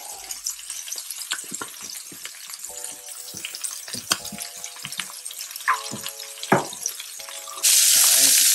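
Chicken pieces searing skin-side down in hot olive oil, sizzling with scattered pops and crackles. Near the end the sizzle suddenly becomes much louder.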